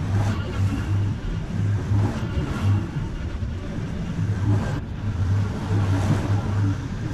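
Ferris stand-on zero-turn mower running while cutting thick overgrown grass: a steady engine drone that swells and dips as the blades meet heavier or lighter grass, with the hiss of the cutting deck over it.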